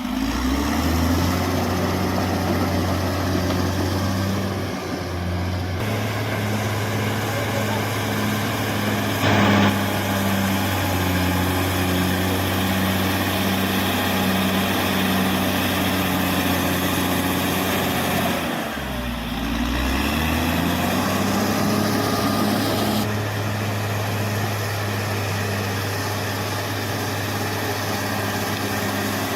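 Caterpillar D6R XL bulldozer's diesel engine running steadily under load, its pitch sagging and picking up again near the start and about two-thirds of the way through. There is a brief, sharp, louder sound about nine seconds in.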